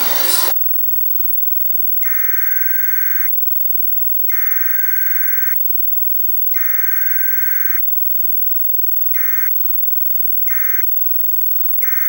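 Electronic beep tone sounding six times: three long beeps of just over a second each, then three short beeps, evenly spaced, over a faint steady hiss.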